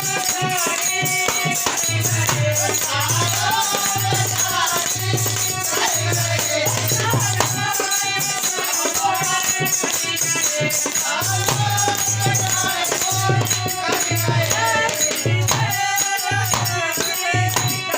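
Bhajan (Hindi devotional song) music: a bending melody over a steady low drum beat with continuous jingling, rattle-like hand percussion.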